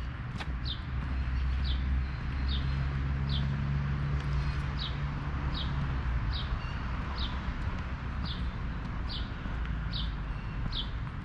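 A bird repeating a single short, high, falling note at a little more than one a second, over a steady low rumble.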